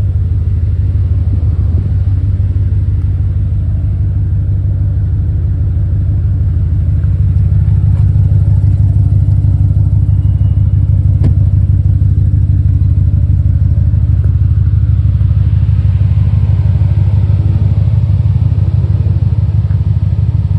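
2021 Audi RS6's twin-turbo 4.0-litre V8 idling steadily, a deep even sound that grows a little louder about seven seconds in. A single sharp click comes a little past eleven seconds.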